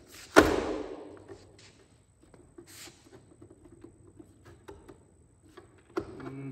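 Hard plastic knocks and light clicks as an LED marker-light lens is handled and pressed into a Ford F-350 tow mirror's plastic housing. A sharp knock about half a second in, briefly echoing, then scattered small taps and clicks, and another knock near the end.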